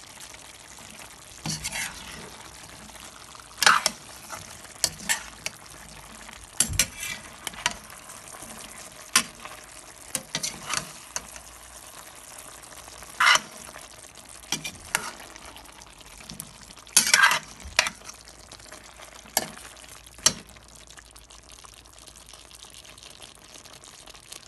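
A spatula stirring a thick chicken and pineapple stew in a metal pot, scraping and knocking against the pot in short, irregular clatters. It plays over a faint steady sizzle from the simmering pot. The stirring stops a few seconds before the end.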